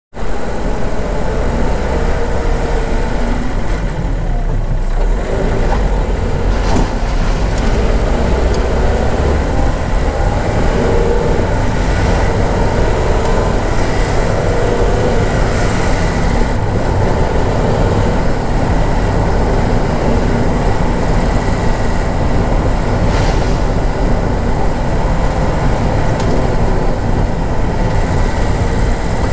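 Car driving slowly over a rough lane, heard from inside the cabin: a steady low rumble of engine and tyres, with a few light knocks from bumps.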